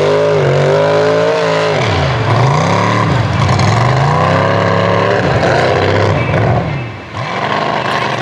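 GMC mega mud truck's engine revving hard under load as it churns through a mud pit, its pitch rising and falling again and again. The sound drops briefly about seven seconds in.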